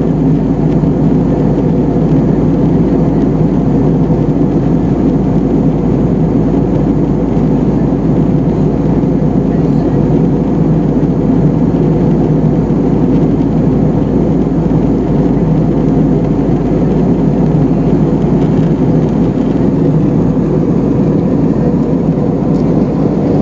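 Steady cabin noise inside an Airbus A320-family airliner in flight: the constant low rumble of the jet engines and the airflow over the fuselage, unchanging throughout.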